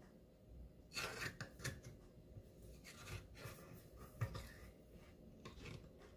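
Silicone spatula scraping and stirring thick mashed purple yam in a nonstick pan: a faint, irregular series of short scraping strokes.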